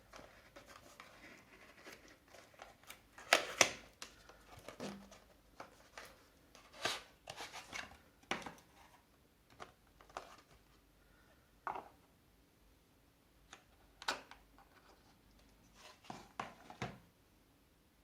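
Hands handling a Samsung 980 Pro M.2 SSD and the small parts of a mini PC during installation: scattered sharp clicks, taps and brief rustles, the loudest a pair of clicks about three and a half seconds in.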